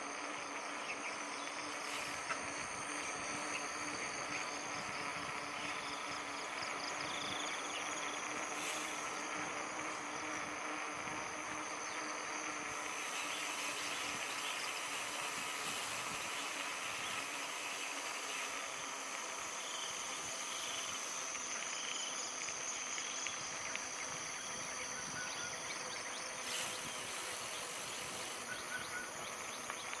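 Steady chorus of insects such as crickets, over the faint rolling noise of a mountain bike's tyres on a paved road.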